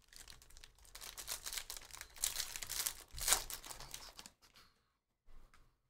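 The foil wrapper of a 2023 Bowman Draft Jumbo card pack being torn open by hand, crinkling and crackling, with the loudest tear about three seconds in. It stops after about four seconds.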